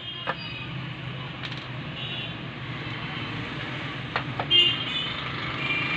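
A few light clicks and knocks of wires and parts being handled inside an opened inverter welding machine, the loudest about four and a half seconds in, over a steady background hum.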